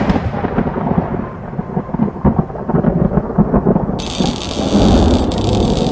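Thunderstorm sound effect: a sharp crack at the start, then rumbling thunder over a crackling, rain-like hiss, with a brighter hiss joining about four seconds in.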